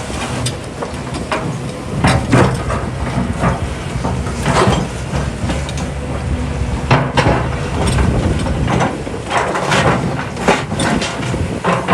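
Doosan DX300LC tracked excavator at work: its diesel engine runs steadily under repeated irregular metallic clanks and knocks.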